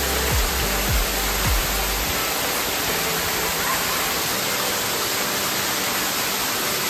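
Music with a thumping bass beat over a steady, loud rushing noise like falling water. The bass beat drops out about two seconds in, leaving the rushing noise and faint held low notes.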